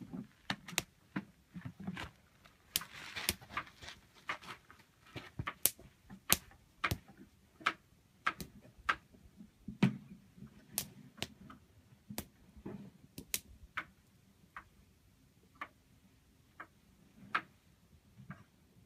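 Campfire wood crackling and popping: irregular sharp snaps, one to several each second, over a soft low rumble of the burning fire.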